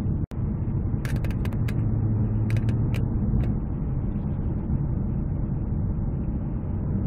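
Cabin noise of a Genesis G330 sedan driving at a steady speed: a steady low drone of engine and tyres. A few light, irregular clicks come between about one and three and a half seconds in.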